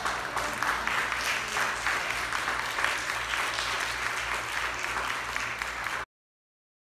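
Congregation applauding: a steady wash of many hands clapping that stops abruptly about six seconds in.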